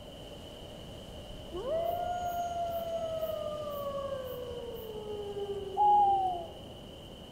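Wolf howl: one long howl that rises quickly and then slowly sinks in pitch for several seconds, followed near the end by a shorter, higher and louder howl that falls away. A steady high-pitched tone runs underneath.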